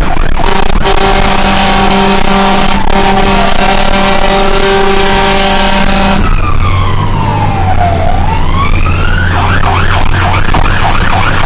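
Fire engine's warning devices heard from inside the cab. A steady horn blast lasts about six seconds. Then the siren falls and rises in one slow sweep before going back to a fast yelp, over the low hum of the truck.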